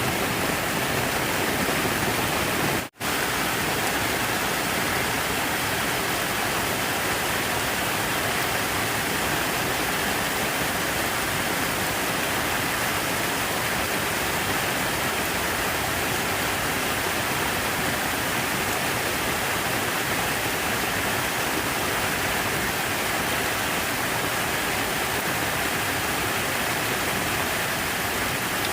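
Steady rushing of falling water, an even white-noise wash that cuts out for an instant about three seconds in.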